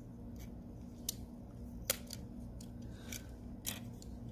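Several short, sharp clicks and snips of small hand tools working on a phone during a battery replacement, the loudest about two seconds in.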